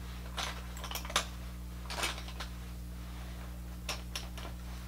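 Makeup items being handled: a scattered series of light clicks and taps, about eight in all, over a steady low electrical hum.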